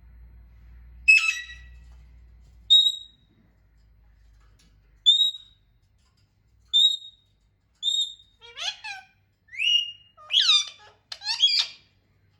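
A pet parrot whistling: short, high whistled notes every second or two, then a quicker run of sliding, up-and-down calls near the end.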